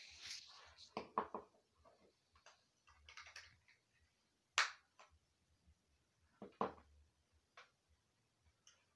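Scattered light clicks and scrapes of a plastic LED bulb being fitted into its lamp holder by hand, with a sharp click about four and a half seconds in and another about two seconds later.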